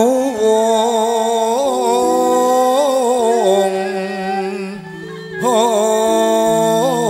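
Javanese campursari with gamelan playing live: a slow, ornamented melodic line with vibrato, sung and doubled by suling bamboo flute and rebab, over sustained metallophone and keyboard notes. The melody pauses briefly about five seconds in, then resumes.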